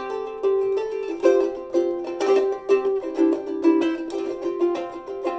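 Soprano travel ukulele strummed with the fingers in chords, about two strums a second, the chords changing as it goes.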